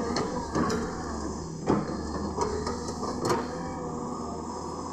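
Caterpillar hydraulic excavator's diesel engine running steadily under load while the bucket digs through stony soil. Several sharp clunks and knocks of the bucket and rock come through, the loudest a little under two seconds in.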